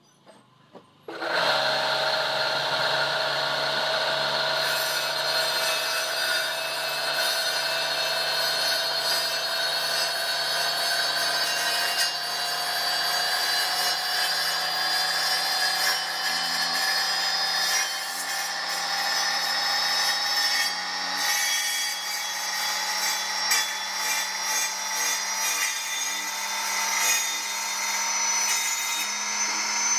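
A motor-driven circular saw blade on a homemade wooden saw bench, switched on about a second in and then running with a steady whine that slowly rises in pitch. It cuts a row of shallow kerfs across a wooden board, with rougher, uneven cutting noise in the later part.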